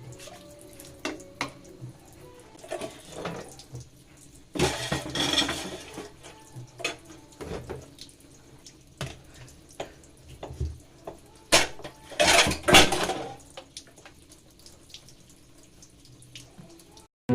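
Washing up at a kitchen sink: dishes and cutlery clinking and knocking, with the tap running in two short spells, about five seconds in and again about twelve seconds in.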